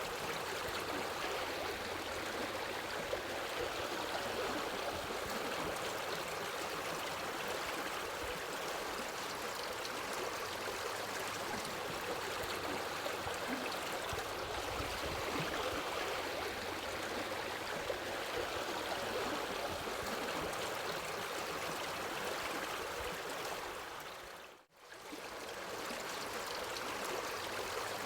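Steady sound of flowing, trickling water. Near the end it fades out briefly, almost to silence, then fades back in, like the seam of a looped ambient recording.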